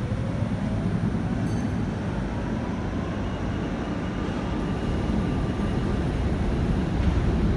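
Bombardier Flexity tram standing at an underground platform: a steady low rumble with faint, high whine tones running through it.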